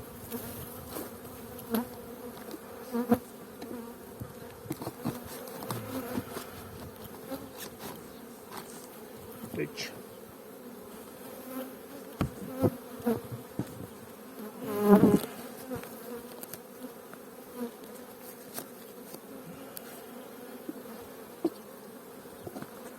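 Open honeybee colony buzzing with a steady hum. Scattered short clicks and a louder knock about fifteen seconds in.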